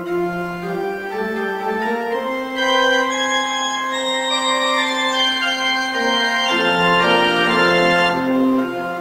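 Organ playing a postlude of held chords, the notes sustained without fading and moving to new chords every second or two, swelling slightly about three seconds in.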